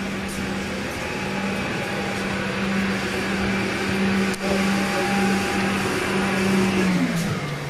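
Steady whirring hum of cooling and ventilation fans running in a parked airliner cabin on ground power, with a steady low tone that slides down in pitch near the end. A single short knock about four and a half seconds in.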